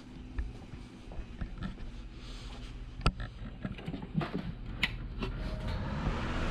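Scattered sharp clicks and light knocks of hands handling cords at a wall power strip, the sharpest about three seconds in, over a steady low hum.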